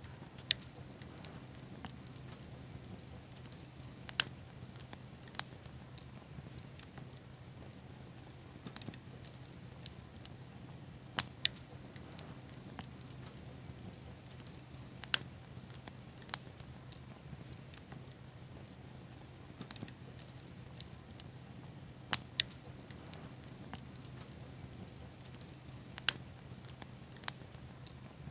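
Bonfire of pine cones and sweetgum seed balls burning, with a sharp pop or crackle every few seconds, some in quick pairs, over a faint steady hiss and a low steady hum.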